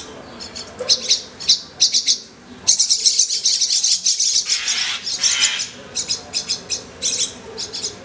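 Common myna nestlings begging for food with rapid, high-pitched chirps, which swell into a dense, harsh outburst from about three to five and a half seconds in while a parent feeds them.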